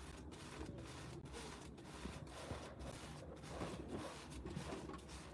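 Faint crackling hiss of a chapati cooking in an oiled frying pan, with soft handling as it is pressed and turned by hand.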